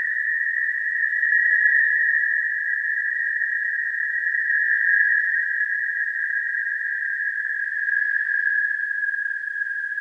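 High-pitched horror ring sound effect: one steady, high ringing tone that wavers slightly, held without a break as a creepy background drone.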